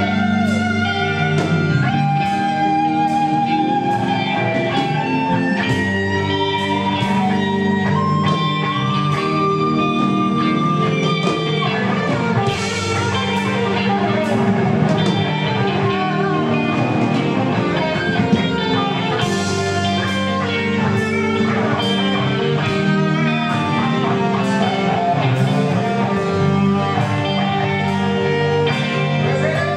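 Live rock band playing an instrumental passage: electric guitars over drums, with a held guitar line climbing in steps, and two cymbal crashes, about a third and two thirds of the way through.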